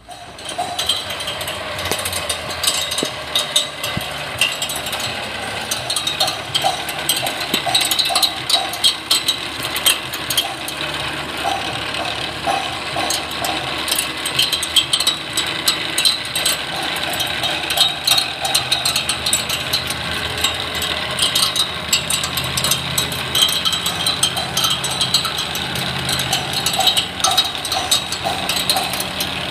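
Cylinder mower reel spun by a sharpening machine's motor: a steady mechanical run with dense, rapid ticking as the blades turn.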